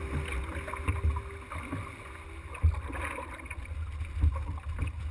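Water sloshing around an ocean rowing boat with wind rumbling on the microphone, and a couple of sudden knocks.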